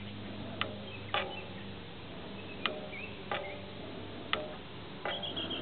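Beekeeper's bellows smoker being pumped, three times about two seconds apart: each stroke is a sharp click followed by a short puff of air, puffing smoke over the open hive.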